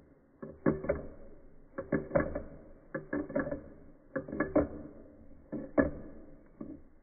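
Pet rat licking at the metal sipper spout of its water bottle, heard slowed down: groups of hollow clicks and knocks from the tongue against the spout, a cluster about every second to second and a half.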